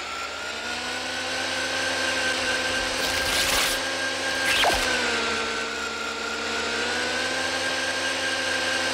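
Cartoon vacuum-machine sound effect: the Ectovac, a slime-sucking vacuum robot, running with a steady electric whirring hum. A rush of suction comes in about three seconds in, with a short sharp click a little after it.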